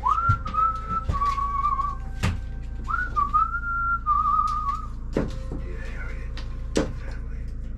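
A person whistling two short wavering phrases of a tune, each about two seconds long, followed by a few sharp clicks or knocks over a steady low hum.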